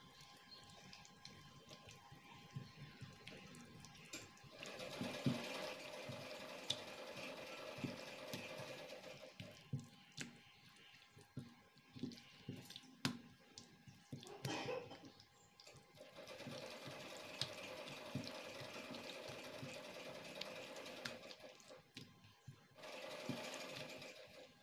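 Faint wet squelching and slapping of a hand working a runny marinade into raw chicken breasts on a plate. It comes in stretches with short quieter pauses between them.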